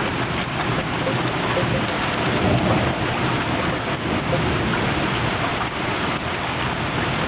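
Heavy rain pouring steadily during a thunderstorm, with thunder rumbling underneath, swelling slightly a couple of seconds in.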